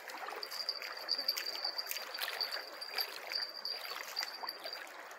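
River water lapping and splashing at the bank, with a thin, steady high whine running through it.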